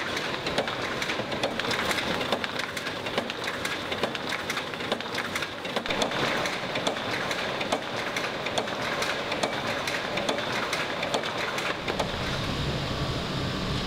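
Print-finishing machine running as it feeds stacks of folded magazine sheets, a dense, fast rattle of clicks and paper over a steady mechanical hum with a faint high whine.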